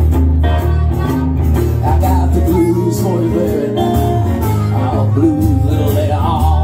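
Live blues played on electric guitar and acoustic guitar, with an amplified harmonica wailing bent notes over them in an instrumental break.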